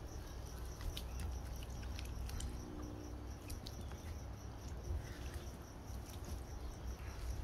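Soft scratchy rustling and small clicks of hands and a scouring pad gripping and peeling the slippery skin off a cuttlefish wing. A cricket chirps steadily behind it, over a low rumble.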